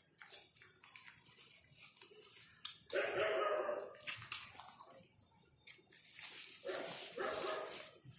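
A dog vocalising in two bursts of about a second each, about three seconds in and again near the end, with smaller sounds and faint clicks between.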